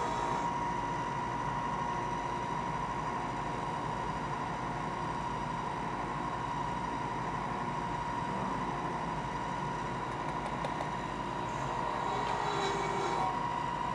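Steady rushing hiss of a gas torch flame burning, with a constant whistling tone in it, used for heat-anodizing titanium dice. A few faint ticks come about ten seconds in.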